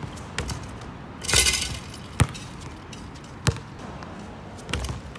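A basketball hitting the hoop about a second in, with a short bright metallic rattle of the rim and backboard. After it the ball bounces three times on the hard outdoor court, each bounce a sharp thud about a second and a quarter apart.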